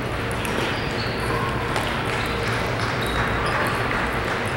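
Table tennis balls clicking off paddles and tables, scattered irregular knocks from many tables over a steady hum of hall noise.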